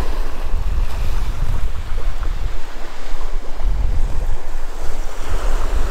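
Small surf waves washing up and running back over a sandy beach, with wind buffeting the microphone in a steady low rumble.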